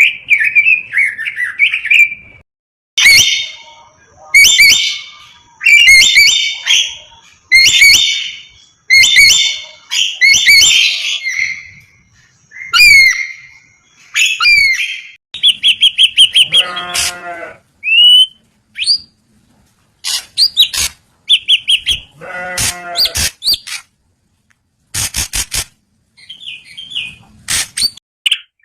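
Birds calling loudly: a harsh call repeated about every second and a half, then a mix of short whistled glides, rapid trills and sharp clicking notes, with a couple of longer nasal, bleat-like calls.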